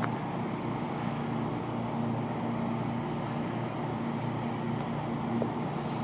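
A steady mechanical drone from an engine or machine running at a constant speed, holding one low pitch without change.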